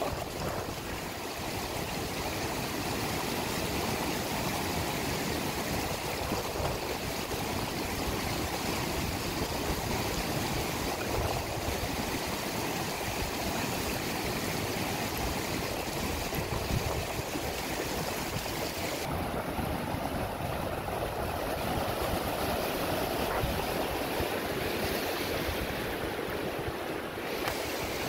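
Hot-spring water and river water rushing steadily over rocks. The high hiss dulls for several seconds past the middle, then returns.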